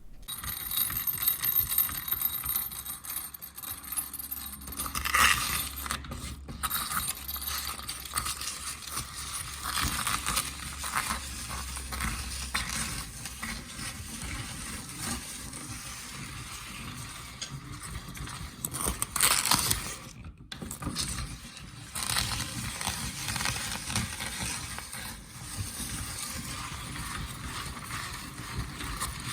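Small meat grinder crushing crisp meringue: continuous crunching and scraping, with louder bursts of crunching about five seconds in and again near twenty seconds.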